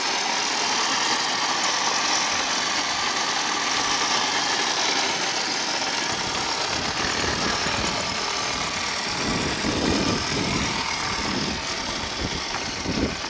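Large-scale electric RC monster truck driving on pavement: its brushless motor and geared drivetrain whirring steadily along with tyre noise. Some low rumbling surges come in about two-thirds of the way through.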